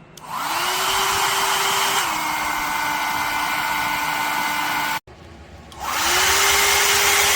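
Small dual-voltage travel hair dryer switched on, its motor spinning up to a steady whine over rushing air. About two seconds in, it drops to a lower speed setting. It cuts off abruptly near five seconds, then starts again and spins back up to the higher speed.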